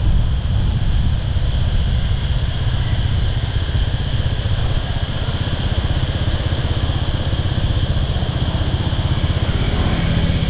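A motorbike engine running steadily while riding, with a heavy low wind rumble on the microphone. Under it runs a steady, high-pitched chorus of cicadas.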